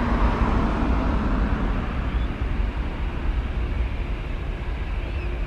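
Boeing 737-800's twin CFM56 turbofans at takeoff thrust during the takeoff roll: a loud, steady jet roar with a deep rumble that eases slightly over the few seconds.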